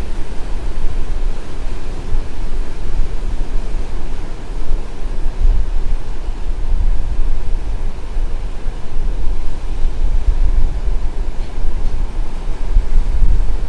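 Strong wind buffeting the microphone in loud, gusting low rumbles, over the steady wash of ocean surf.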